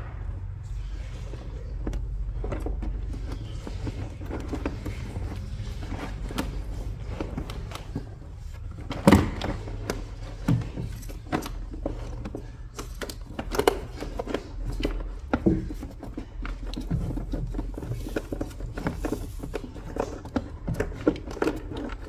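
Scattered plastic clicks and knocks as the Mercedes W204 front SAM control unit and its connectors are handled and fitted into the engine bay, the sharpest knock about nine seconds in, over a low steady hum.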